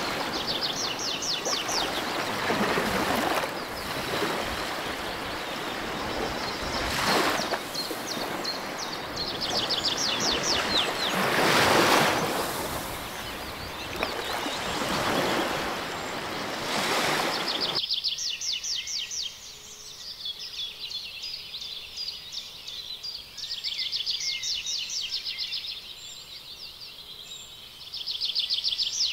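Birds singing in rapid, repeated trills. For the first eighteen seconds or so a loud rushing noise with several swells lies under the birdsong, then cuts off suddenly.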